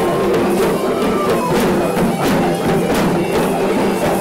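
Sri Lankan procession drumming: a troupe of hand-and-stick drums beating a steady pattern under a reed pipe holding a nasal, bagpipe-like melody.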